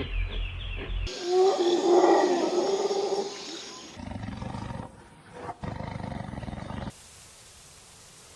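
Big cat roaring: one loud call of about two seconds, starting about a second in, after which the sound cuts to quieter animal clips.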